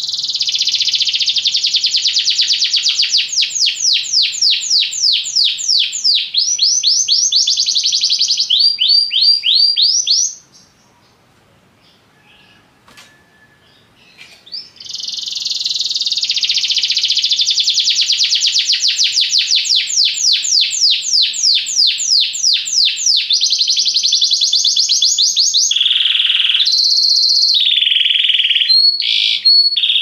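Domestic canary singing two long song phrases of fast trills, the repeated notes changing speed from phrase to phrase, with a break of several seconds in the middle.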